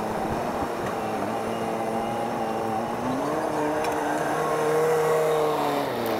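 Deutz-Fahr Agrotron tractor's diesel engine running as the tractor drives off, its note rising from about halfway and dropping again near the end.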